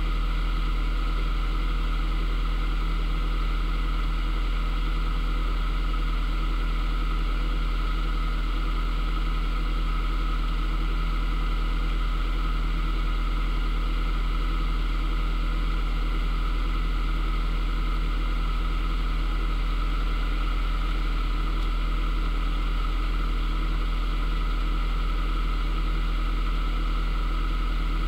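Narrowboat's inboard engine running steadily at cruising speed, a constant low hum with no change in pitch.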